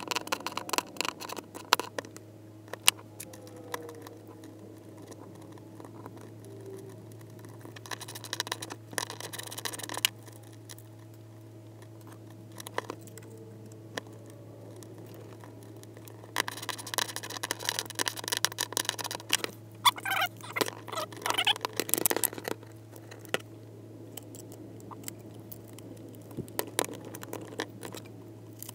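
Small clicks, taps and scratches of an Asus Zenbook's lid, hinge bolts and plastic hinge cover being handled and pressed into place, with a few longer stretches of scraping. A steady low hum runs underneath.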